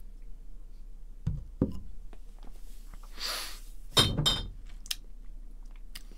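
A beer glass is set down on a wooden tabletop about four seconds in: a sharp knock and clink with a brief ring. It follows a couple of soft low knocks and a short hiss.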